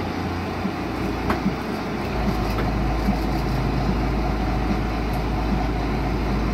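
Tour boat's engine running steadily while under way, a constant low hum with wind and water noise over it. The engine hum drops lower about two seconds in.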